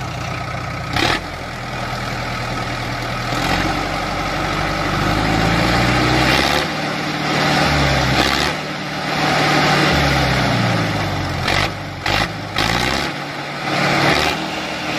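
Tractor engine running, its pitch rising and falling as it revs up and down, with a few short sharp sounds about a second in and near the end.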